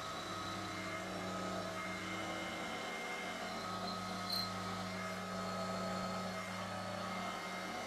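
Milling machine running, its spindle swinging a carbide boring bar that cuts a ball end on an aluminium part turning on a rotary table. It makes a steady machine hum with higher whining tones, and there is one brief high chirp about four seconds in.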